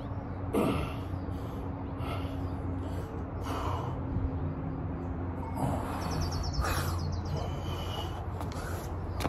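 A man breathing hard from exertion during a bodyweight exercise set: short, forceful exhalations roughly every second or two, over a steady low hum.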